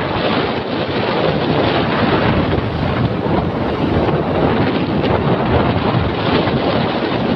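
Strong wind buffeting the microphone over a rough sea, with waves washing; a steady, dense rush with no let-up.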